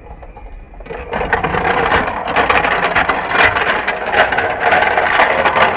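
Mega Bloks toy train engine rattling along plastic track: a loud, continuous clatter of many small clicks that starts about a second in.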